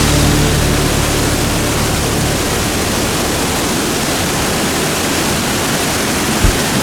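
Waterfall rushing: a loud, steady, even roar of falling water.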